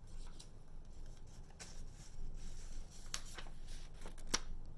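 Paper cards being handled and swapped: light rustles and a few sharp clicks, the sharpest about four seconds in, over a faint steady room hum.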